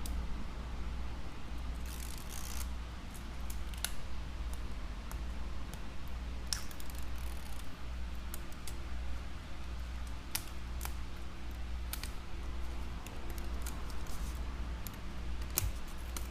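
Scattered small clicks and taps of hands handling tablet parts and tools on a workbench, with a brief rustle about two seconds in, over a steady low electrical hum.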